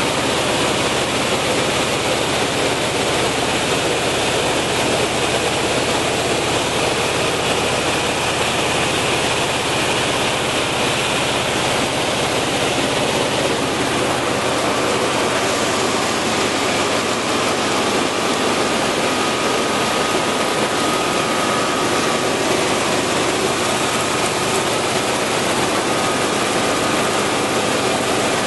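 5XZD-15AC grain cleaner and grader running, a steady, loud mechanical noise with grain pouring through its screens. A faint steady whine joins about halfway through.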